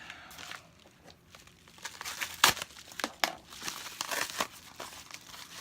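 A package being torn open by hand, its packaging crinkling and rustling in irregular bursts, with one sharp crack about two and a half seconds in.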